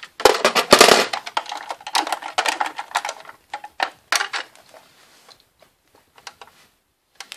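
Small hard plastic toys clattering and knocking as figures are handled inside a plastic toy camper: a dense run of clicks and rattles for about three seconds, a few separate knocks around four seconds in, then only faint scattered taps.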